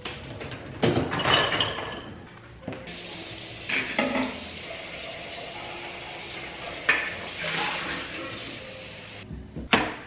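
Dishes clattering in a dishwasher rack, then a kitchen faucet running steadily for about six seconds before it is shut off abruptly.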